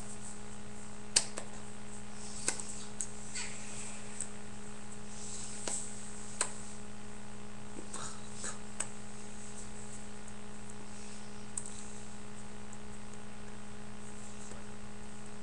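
Steady low electrical hum over faint hiss, broken by scattered short, sharp clicks and taps at irregular intervals.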